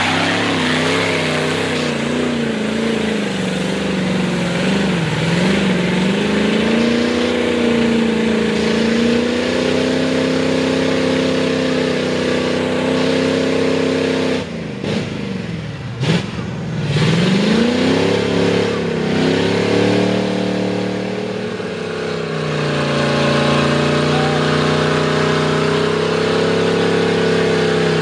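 Chevy square-body mud truck's V8 with open headers run hard at high revs as its tyres spin through deep mud. About halfway through, the revs drop sharply and then climb back up, before holding high again.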